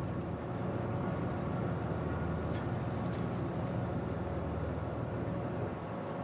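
Boat engines revving up as the boat starts to move, a steady low hum with a few faint steady tones above it.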